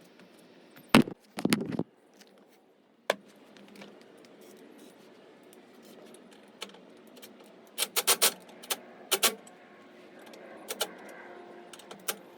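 Metal tools and parts clinking and knocking during hands-on work on the car, in scattered sharp clicks with a louder clatter about a second in and a quick cluster of clinks about two-thirds through.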